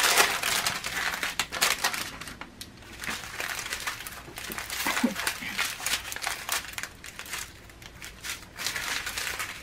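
Small plastic bags of diamond-painting drills rustling and crinkling as they are handled and laid out over a plastic-covered canvas. The crinkling is irregular, heaviest in the first two seconds, then lighter.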